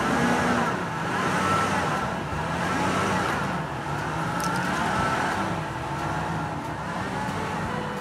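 Pickup truck engine running and revving up and down as the truck creeps forward under load, pulling on a rope that tips a large timber crane upright.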